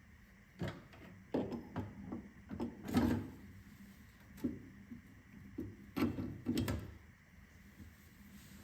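Irregular clicks and knocks of metal parts and tools being handled during cylinder-head work on a small diesel engine, the loudest about three seconds in and a quick cluster of knocks around six to seven seconds in.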